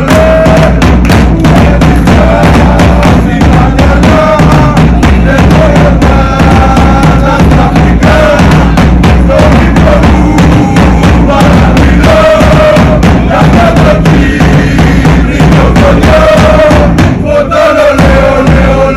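Loud music with drums: bass drum and snare beating in a dense, fast pattern under a held pitched melody.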